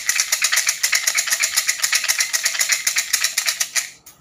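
Bundle of fortune sticks rattling in a yellow fortune-stick cylinder as it is shaken hard and fast to draw a stick (xin xăm). The rattle stops just before the end, with a light click as it ends.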